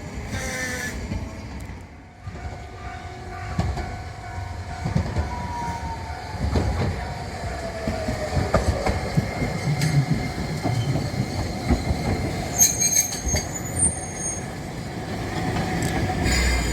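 A rail vehicle running past on the track: a low rumble of wheels on rails, with a faint whine that falls slowly in pitch over several seconds and brief high-pitched wheel squeals later on.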